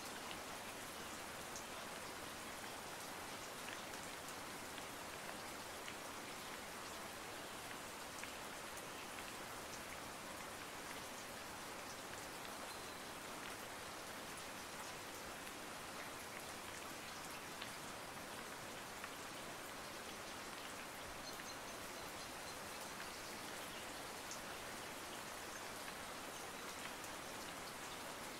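Steady, even hiss with faint scattered ticks, like rain falling.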